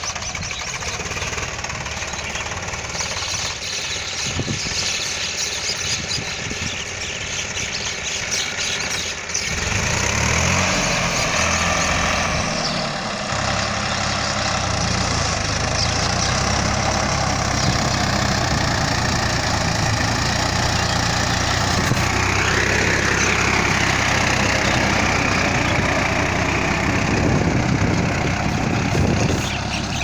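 Swaraj 960 FE tractor's diesel engine running under load as it drives a rotavator through the soil, growing louder about nine seconds in as the tractor comes close, with a short rise and fall in engine pitch a little past the middle.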